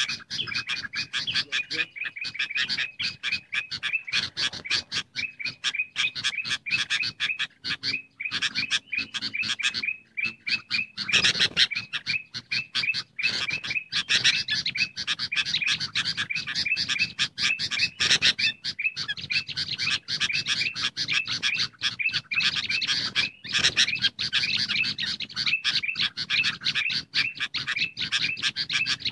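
Bulbuls calling in a dense, fast chatter of short, rapidly repeated notes: agitated sooty-headed bulbul calls mixed with ruby-throated bulbul, a combination used as a bird-trapping lure.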